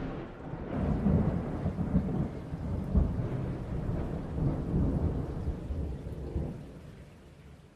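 Thunder rumbling over a steady hiss of rain, in uneven rolling surges with one sharper peak about three seconds in, fading away over the last second or two.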